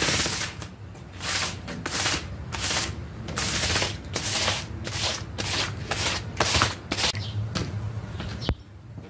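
Rhythmic scraping strokes of a squeegee blade dragged across a wet, muddy rug, roughly two strokes a second, ending with a short sharp knock.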